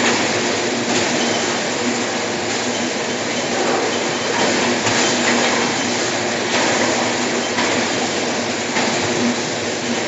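Cereal bar packing line running: a steady mechanical noise from its conveyors and drives, with a faint steady hum underneath.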